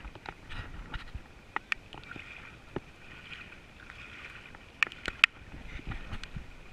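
Kayak paddling on the water: paddle strokes with splashing and several sharp knocks. The loudest are two knocks about five seconds in.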